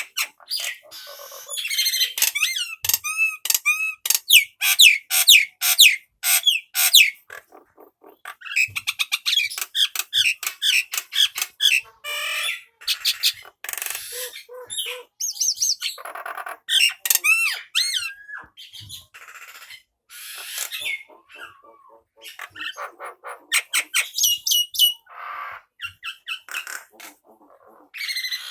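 Male Nias hill myna calling and singing: a loud, varied run of whistles, fast strings of repeated chirps, pitch-gliding notes and harsh squawks, with short pauses between phrases.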